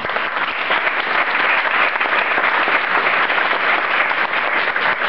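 Audience applauding steadily, a room full of people clapping at the end of a speech.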